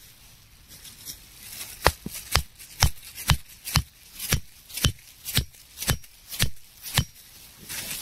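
Wooden tent stake being hammered into snow-covered ground: about eleven sharp knocks, roughly two a second, starting about two seconds in.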